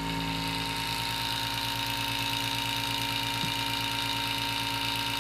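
Electric vacuum pump running steadily, a hum with a slight pulse, as it pumps air out of the buzzer chamber.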